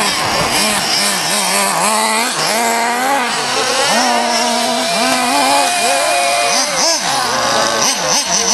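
Small two-stroke nitro engine of a 1/8-scale RC buggy, revving up and down again and again as the throttle is worked, its pitch rising and falling about once a second.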